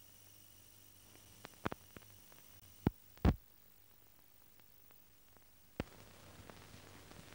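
Faint steady hum and hiss of an old film soundtrack, broken by a handful of sharp clicks and pops, the loudest a little over three seconds in.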